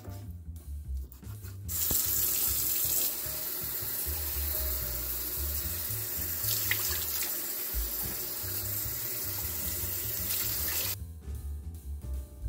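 Kitchen tap running into a sink while raw chicken pieces in a bowl are rinsed under the stream. The water starts about two seconds in and stops suddenly near the end. Background music with a steady low beat plays throughout.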